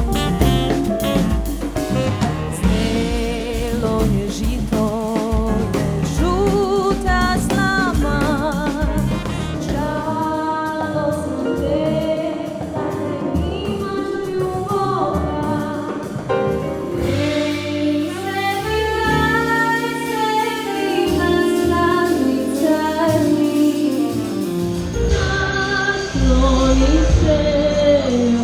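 Band music with singing, Balkan–Caribbean folk fusion. The deep bass drops out for several seconds in the middle and then returns.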